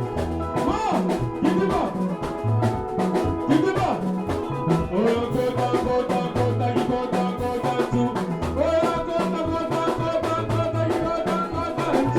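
Upbeat dance music with a steady beat, a bouncing bass line and a melody over it.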